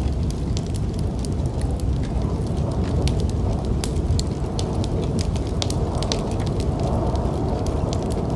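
Wood fire in a fireplace crackling, with frequent sharp pops scattered over a steady low rumble.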